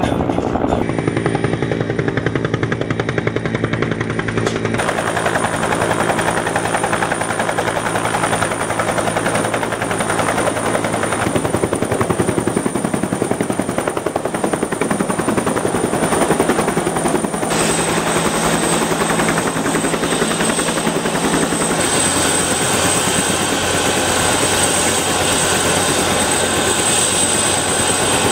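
Helicopter running steadily: turbine and rotor noise with a thin high whine, the sound shifting abruptly several times.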